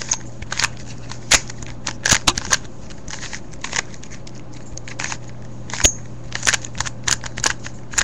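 A 3x3 Rubik's Cube being turned by hand, its plastic layers clicking in irregular runs of sharp clicks, over a steady low hum.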